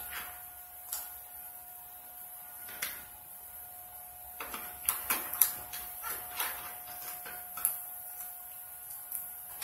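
Scattered light clicks and knocks of supplies being handled while a piercing is set up, with a cluster of them about halfway through, over a faint steady tone.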